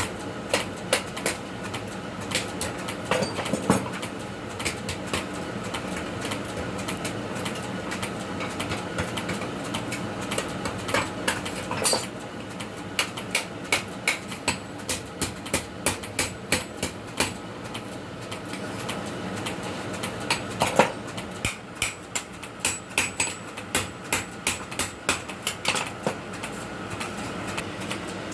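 Hammer blows forging a steel blade on an anvil, coming in runs of quick, ringing strikes about three a second, over a steady low hum.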